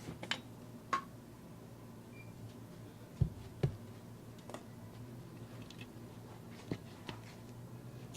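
Scattered light clicks and taps of soldering tools and wire leads being handled on a workbench, with two duller knocks a little past three seconds in, over a faint steady hum.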